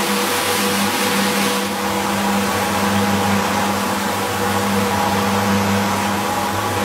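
Single-disc rotary floor scrubber running steadily, its motor humming while the rotating brush scrubs a wet, foamy carpet.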